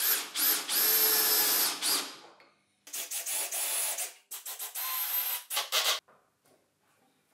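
Bosch cordless impact driver driving hex lag bolts through caster mounting plates into a plywood bench leg. There are three runs: the first lasts about two seconds and the next two are shorter. Each run whines up to a steady speed and then stops.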